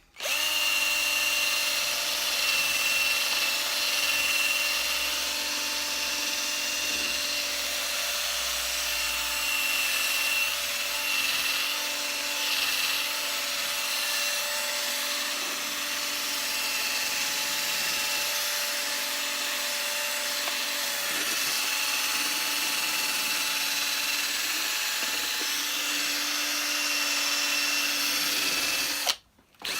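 Electric polishing machine running steadily with a whine, buffing dried polish off a vacuum cleaner's plastic body. The sound cuts out briefly near the end.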